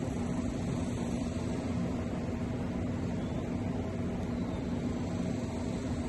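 A steady low rushing noise with a constant hum underneath, even throughout and without any change.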